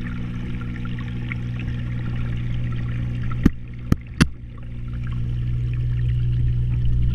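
Underwater sound inside a saltwater aquarium, heard through a GoPro's waterproof housing: the steady low hum and water rush of the tank's pumps. About three and a half to four seconds in come three sharp knocks as the camera housing bumps against something in the tank.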